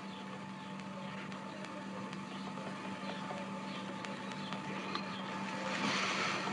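Steady low hum under an even hiss, with a faint thin tone above it that stops about six seconds in.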